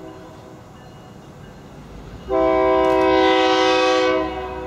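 Diesel locomotive air horn sounding one long blast of about two seconds, a chord of several steady tones, beginning a little over two seconds in. Under it is a low engine rumble that swells just before the blast.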